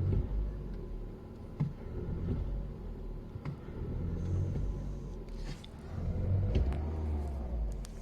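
Audi A2 1.4 petrol engine running rough at cold idle and misfiring, its low rumble swelling and sagging unevenly as it is given throttle and won't take revs. The owner suspects a failing 12V battery with a weak cell.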